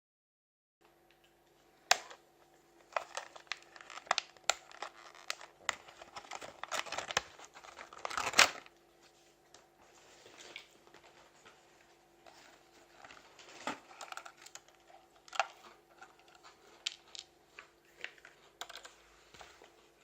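Handling noise: irregular crinkling and rustling with sharp clicks, busiest in the first half and loudest about 2 and 8 seconds in, then sparser, over a faint steady hum.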